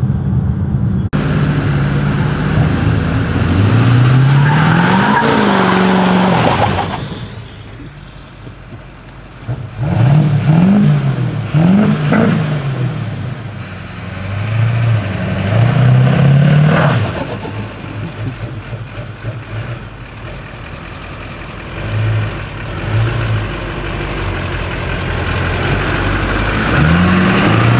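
Lifted diesel pickup truck's engine revved hard again and again, its pitch swelling up and falling back in about five surges, with a quieter lull partway through.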